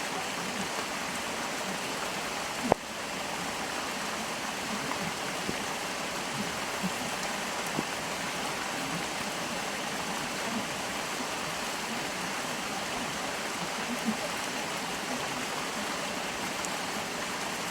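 Stream water flowing steadily, with small scattered gurgles and drips. There is one sharp click about three seconds in.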